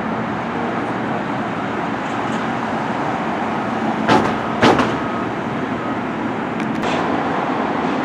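Steady rumble and rattle of a moving train, with two sharp knocks about half a second apart just past halfway.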